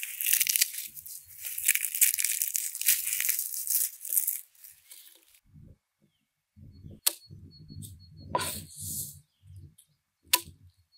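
Dry, papery skin being torn and peeled off a fresh garlic bulb by hand, a dense crackling rustle that stops about five seconds in. After a short pause, a knife works on a wooden cutting board with soft low knocks and a few sharp clicks.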